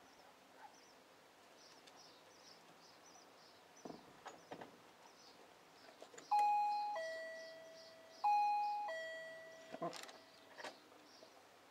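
A two-tone doorbell chime rings ding-dong twice, a higher note dropping to a lower one that fades, set off by a dog pushing the doorbell button beside the door. Faint birdsong and a few light taps and clicks are heard around it.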